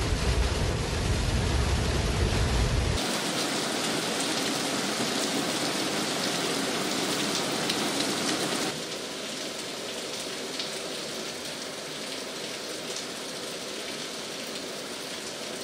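Heavy tropical-storm rain. For about the first three seconds it is heard from inside a moving car, rain on the windscreen over a low rumble of road noise; then a steady downpour outdoors, dropping a little in level about nine seconds in.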